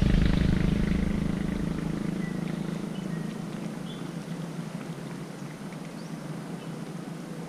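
An engine drones steadily and fades away over the first three to four seconds. After that only a faint hiss with a few small scattered ticks is left.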